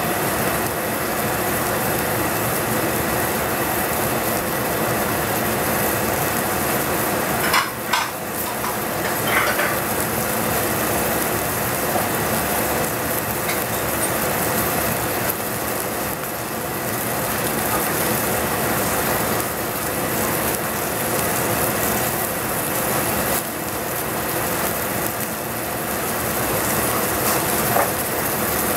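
Chard sizzling in a stainless steel saucepan over a gas flame: a steady hiss, with a few brief knocks about 8 and 9 seconds in.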